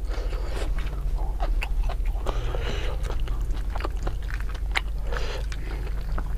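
Close-miked chewing of rice and chicken, with many short wet mouth clicks and smacks over a steady low hum.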